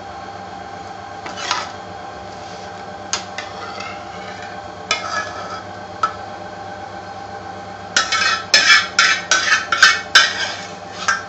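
Metal ladle clinking against a steel pan as curry is ladled into a foil takeaway container, a few separate knocks at first, then a quick run of loud clatters and scrapes near the end as the pan is scraped out. A steady hum runs underneath.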